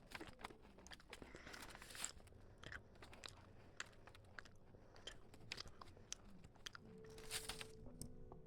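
Faint scratching and small clicks of a pen writing on paper, with one longer scratchy stroke about seven seconds in.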